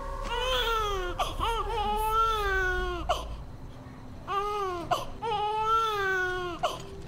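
Newborn baby crying: several long wailing cries, each rising and then falling in pitch, with short breaths between.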